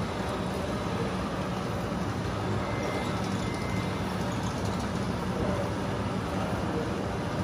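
Scale radio-controlled truck running, with a steady low engine hum.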